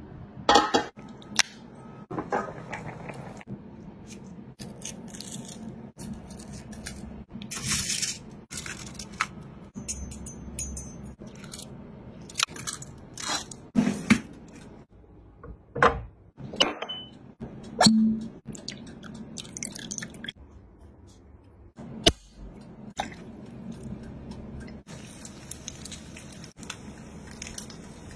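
Kitchen handling sounds: a run of separate clicks, knocks and scrapes as a lid goes onto a cooking pot and a foil-lined oven tray is slid out, over a faint low hum.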